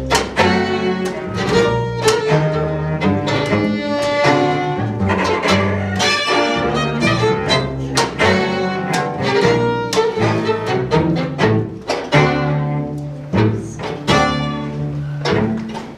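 String quartet of violin, viola, cello and double bass playing together, a lively piece with many short, sharply attacked notes over a low bass line.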